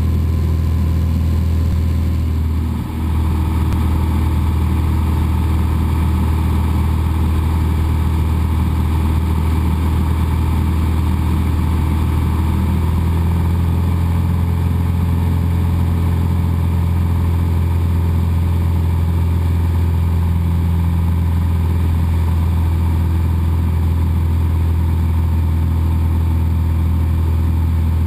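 Cessna 172's engine and propeller droning steadily in flight, heard inside the cabin, with a brief dip in level about three seconds in.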